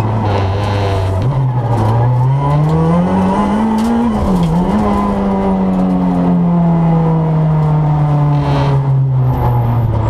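Renault Clio R3's 2.0-litre four-cylinder engine, heard from inside the cabin: the revs climb for about three seconds, dip briefly about four and a half seconds in at a gear change, then fall slowly as the car slows down.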